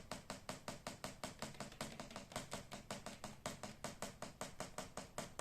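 Rapid, steady clicking or tapping at about nine ticks a second.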